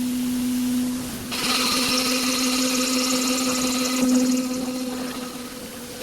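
CNC glass machining center running with a steady hum. About a second in, the higher grinding noise of its tool cutting into glass joins and eases off toward the end.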